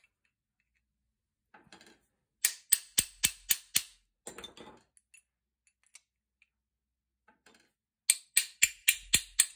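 Small hammer tapping a brass drift to drive a tight, nearly interference-fit part out of a Yildiz 20-bore shotgun's aluminium-alloy action. There are two quick runs of about seven sharp metallic taps, roughly four a second. The first comes about two and a half seconds in and the second near the end.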